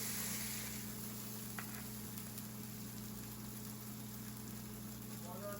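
Burger patties frying with a steady sizzle, a little louder in the first second, over a steady low hum. One small click about a second and a half in.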